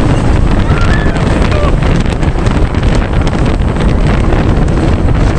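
Heavy, steady wind rushing over the microphone at speed, as on a fast roller coaster ride, with a few faint voices.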